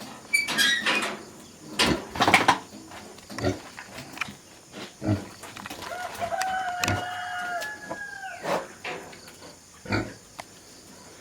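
A rooster crows once, about six seconds in: one long held call that drops in pitch at the end. Scattered short knocks and brief animal noises come before it.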